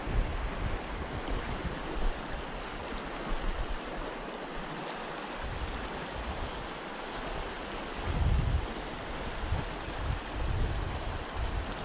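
Shallow, rocky mountain stream rushing steadily, with wind buffeting the microphone in low gusts, heaviest about eight seconds in and again near the end.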